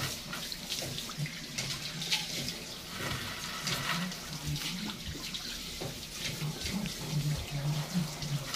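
Water running from a hose and splashing onto a motorcycle as it is rinsed, steady with uneven splashes.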